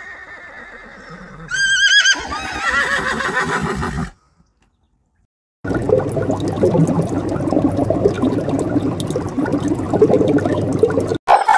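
Zebra giving a high, wavering, whinny-like call about a second and a half in, followed by more calling for a couple of seconds. After a short silence, a dense, steady crackling noise follows.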